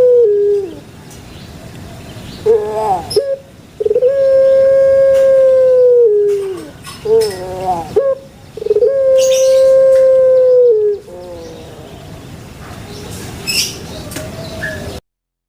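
Puter pelung (domestic Barbary dove) cooing: three long drawn-out coos, each held on one note for about two seconds and sagging in pitch at the end, with short broken notes between them. The sound cuts off abruptly near the end.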